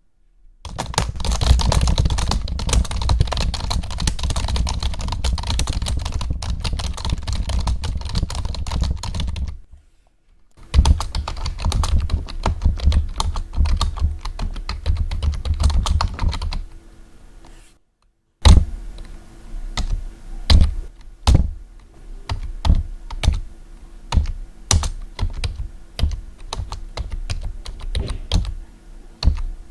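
Typing on a computer keyboard: fast, continuous keystrokes in two long runs with a short pause about ten seconds in. After a brief silence partway through, it turns to slower, separate key presses.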